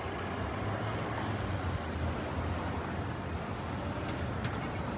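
Outdoor city ambience: a steady low hum under an even wash of background noise, with no single sound standing out.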